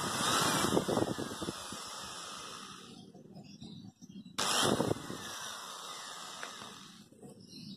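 Electric drill running as a small bit drills holes through the thin aluminium wall of a soda can, in two runs: one lasting about the first three seconds, then a pause, then a second starting about four and a half seconds in and stopping about two and a half seconds later.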